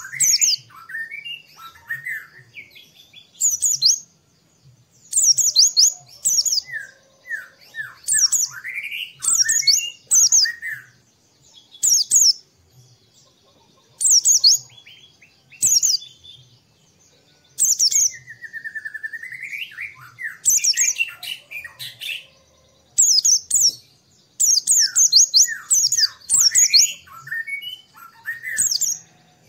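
White-eye (pleci) song: repeated bouts of rapid, high chirping, each a second or two long with short pauses between. Lower sweeping whistled notes are mixed in, including one long rising-and-falling note about two-thirds of the way through.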